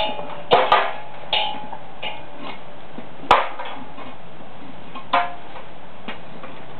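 Sharp metallic clinks and knocks, about six spread irregularly, some with a short ringing after them: metal foundry gear being handled and knocked during a bronze pour. Under them a steady hiss.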